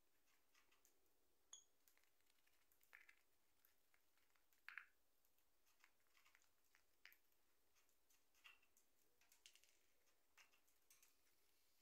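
Faint, irregular clicks and crackles of a peach-faced lovebird's beak pecking and tearing at a cardboard tube and string on a cardboard sheet. The loudest snaps come a little under five seconds in.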